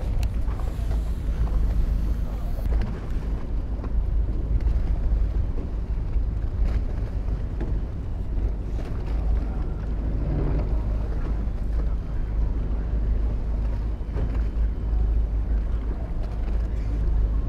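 Wind buffeting the microphone on a fishing boat at sea, over a steady low rumble, with a few faint knocks.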